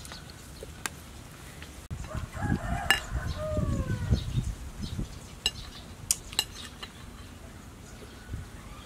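A rooster crowing once: a single drawn-out call of about two and a half seconds that falls in pitch at the end. A few sharp clicks follow.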